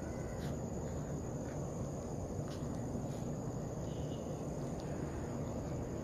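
Crickets trilling steadily over a low, even background noise.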